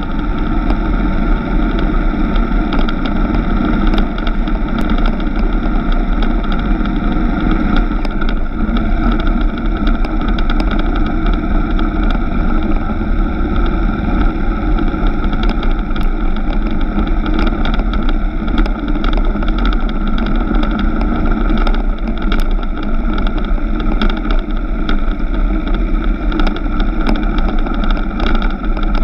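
Suzuki GW250 Inazuma motorcycle's parallel-twin engine running at a steady cruise on a dirt road, with wind and tyre rumble on the bike-mounted microphone. Scattered small ticks sound throughout.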